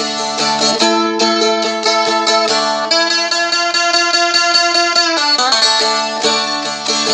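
Seagull Merlin, a four-string fretted dulcimer, played solo: quick picked melody fills over a ringing open drone, with a chord held from about three seconds in to about five seconds in before the fast notes resume.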